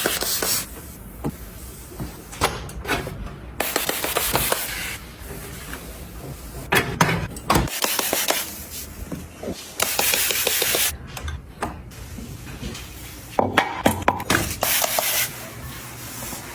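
Kitchen cleaning and handling sounds: several bursts of hissing about a second long, with clicks and knocks of items being handled between them.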